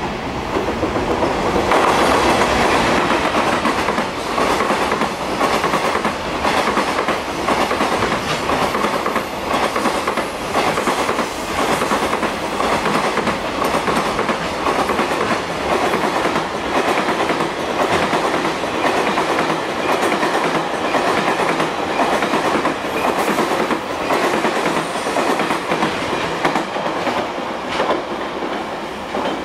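Super Green Shuttle Liner container freight train passing at speed, its wheels clattering rhythmically over the rail joints with a steady rumble. It grows loud about two seconds in and fades near the end as the last wagons pull away.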